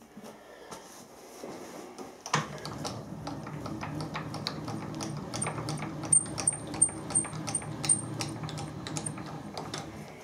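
Milling machine spindle starting up about two seconds in and running with a steady low hum while it power-drives a 10 mm tap into a welded-up aluminium lug. Many sharp clicks run through it, with a run of high squeaks in the middle.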